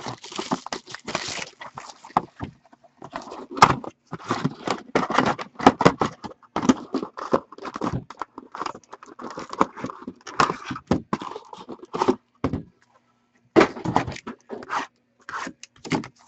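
Trading card box and packs being opened and handled: wrappers crinkling and tearing and cards scraping and shuffling against each other in quick, irregular rustles, with a short pause about thirteen seconds in.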